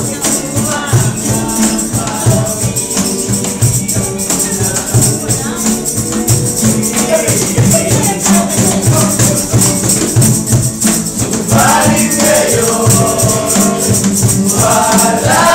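Live acoustic music: two acoustic guitars strummed, with a cajón keeping a steady thumping beat. Voices sing along, coming in more strongly about twelve seconds in and again near the end.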